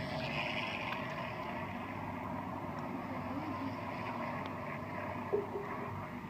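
Steady engine drone, typical of distant piston warbird engines at an airshow, with no distinct events.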